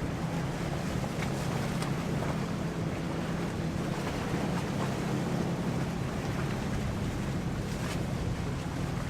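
A passing motorboat's engines running steadily with a constant low hum, over water noise and wind buffeting the microphone.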